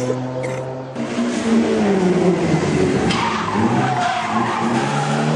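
A rally car's engine runs steadily, then, after a cut about a second in, a Volvo 240 rally car revs hard through a tight turn, its engine pitch rising and falling as the throttle is worked, with tyres squealing as the car slides.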